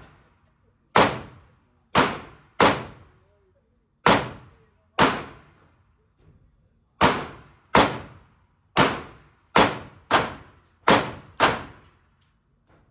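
Gunshots in an indoor shooting range: about a dozen shots at an uneven pace, each followed by a short echoing tail.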